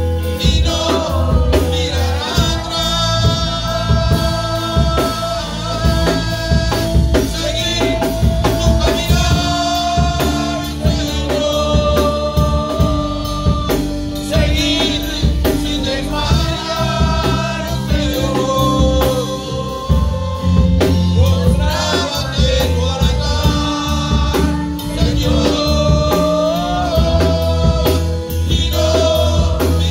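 Live church worship band playing a song: drum kit keeping a steady beat under keyboard and long held sung notes.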